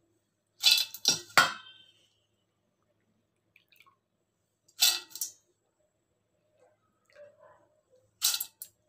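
Soaked urad dal scooped by hand out of its soaking water in a steel bowl and dropped into another steel bowl, splashing and clinking. It comes in three bursts: about a second in, at the middle, and near the end.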